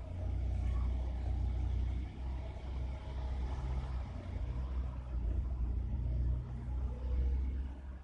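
A steady low rumble that dips briefly about two seconds in.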